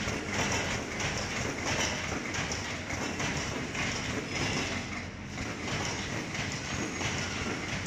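Factory machinery running: a light-wave sterilization tunnel with its wire-mesh conveyor belt and cooling fans. It makes a steady mechanical noise with an even, rhythmic clatter.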